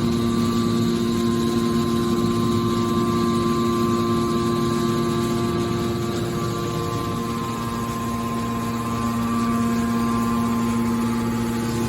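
Hydraulic baler's motor and pump running: a steady machine hum with a few constant tones, easing slightly midway and then rising again.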